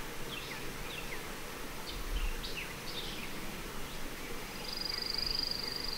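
Outdoor bird chorus: small birds giving short, high, sweeping chirps scattered through the whole stretch, joined about four and a half seconds in by a steady high buzzing trill. A soft low bump about two seconds in.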